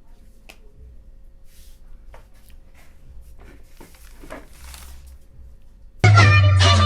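Faint scattered rustles and clicks over a faint steady hum, then loud Bollywood-style music with a heavy bass starts suddenly about six seconds in.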